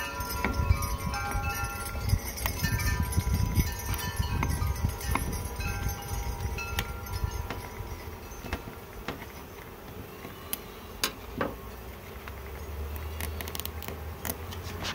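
Wind chimes ringing, several notes overlapping, dying away about halfway through, over a low rumble. A few sharp clicks come in the second half.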